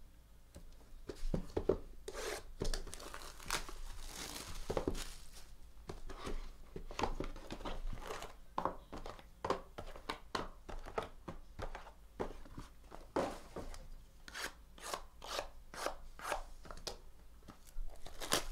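Plastic shrink wrap crinkling and tearing as it is stripped off sealed trading-card boxes, in irregular sharp crackles mixed with the handling of the cardboard boxes.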